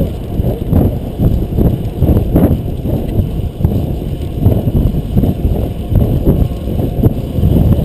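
Wind buffeting the microphone of a bicycle-mounted action camera as a fixed-gear bicycle is ridden at race speed. It is a dense low rumble that gusts unevenly.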